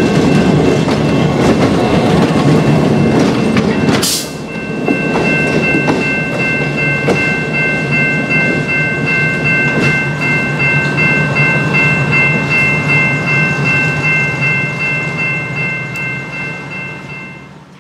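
A diesel locomotive rumbling and its wheels clattering over the rails as it passes close by, with a brief loud burst of noise about four seconds in. After that, a grade-crossing bell rings steadily and rapidly while the locomotive's engine fades away, and everything fades out near the end.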